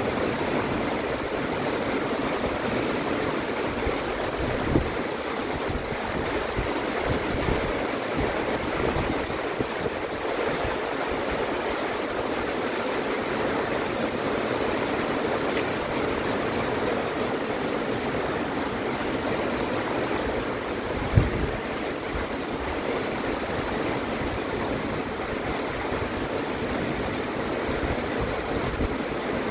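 Heavy rain falling steadily, an even hiss of rain. Two brief low thumps break through it, about five seconds in and again about twenty-one seconds in.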